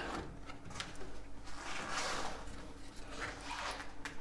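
Faint scraping and rustling with a few light clicks: hands and tools working at a stuck, screwed-on part on the car to pry it loose.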